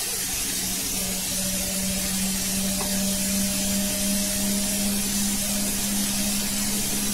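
Red bell pepper strips sizzling in oil in a frying pan as they are stirred with a spatula: a steady frying hiss. A steady low hum runs underneath.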